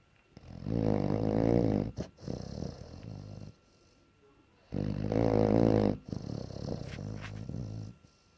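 Bloodhound snoring loudly in deep sleep: two long rattling snores about four seconds apart, each followed by a softer breath and a short pause.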